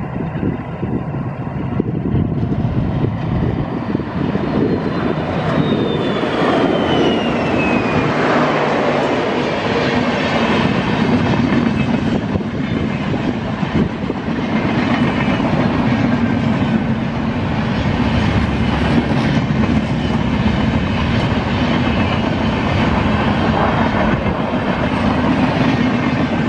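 WDM3A ALCO diesel locomotive passing at speed, engine running with a whine that falls in pitch a few seconds in. A long train of passenger coaches follows, rolling past with wheels clicking over the rail joints.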